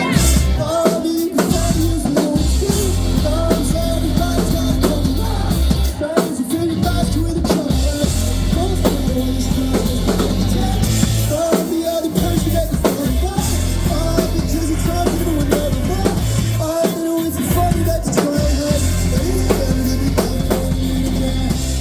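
Live pop-rock band playing a song loudly, with a drum kit keeping a steady beat over heavy bass and melodic lines, and some singing mixed in.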